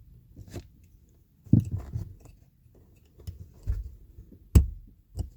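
Small plastic clicks and rattles as the dashboard auto light sensor's electrical connector is handled and unplugged, with a handful of separate clicks and the sharpest one about four and a half seconds in.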